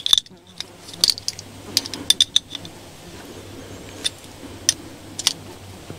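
Small metal clicks and clinks of a wrench working push-connect air fittings into a pneumatic toggle switch: a quick flurry in the first couple of seconds, then a few single clicks spaced out toward the end.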